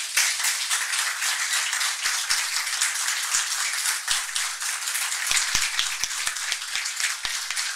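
Audience applauding: many people clapping together, breaking out all at once.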